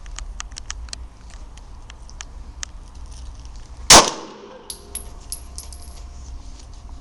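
A single shot from a Glock 17 9 mm pistol about four seconds in, very loud and sharp with a short ringing tail. It is followed by several brief high metallic clinks, like the spent casing bouncing on a hard floor, with faint handling clicks before the shot.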